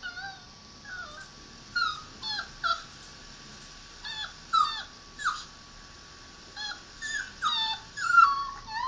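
A dog whimpering: short, high, whining cries that fall in pitch, coming in irregular clusters with pauses between, loudest near the end.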